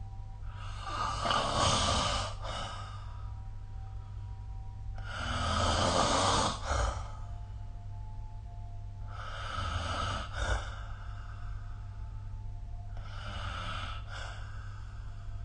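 A sleeping person snoring, with four snores about four seconds apart over a steady low hum.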